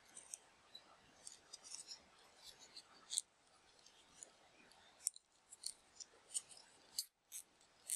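Zip ties being threaded and pulled through their heads around a wooden part: faint, irregular small plastic clicks and ticks, a few sharper ones in the second half.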